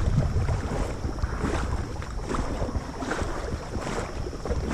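Wind buffeting the microphone: a steady low rumble with irregular gusty noise over it.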